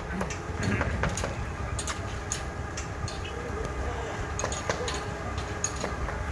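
A steady low engine rumble, with repeated sharp metallic clinks and taps over it.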